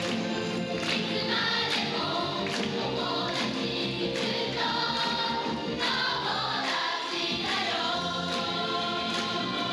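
A chorus of many voices singing together over backing music with a steady beat, the cast's song for the stage finale.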